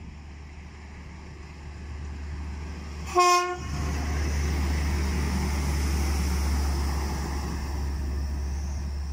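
PKP Energetyka overhead-line maintenance rail vehicle gives one short horn blast about three seconds in, then passes close by with a steady rumble.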